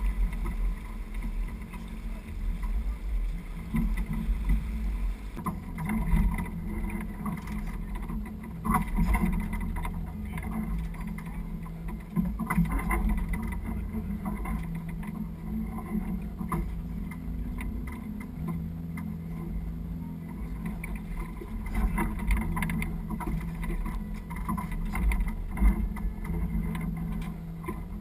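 Sailboat under sail: a low, steady rumble of wind on the camera and water rushing along the hull.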